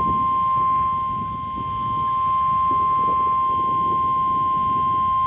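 NOAA Weather Radio warning alarm tone: one steady, unbroken 1050 Hz tone from a weather radio receiver, over a low background hiss, signalling that a warning-level alert is about to be read.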